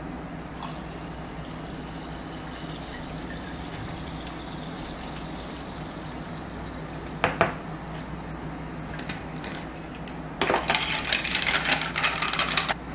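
Sparkling water poured from a plastic bottle into a glass of ice and kiwi syrup, then two sharp knocks a little past seven seconds in. In the last two seconds or so, a long spoon stirs the drink, ice clinking rapidly against the glass.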